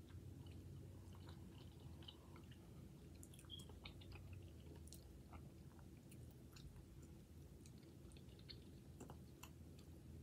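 Faint chewing of instant noodles: soft wet mouth clicks scattered throughout, over a steady low hum.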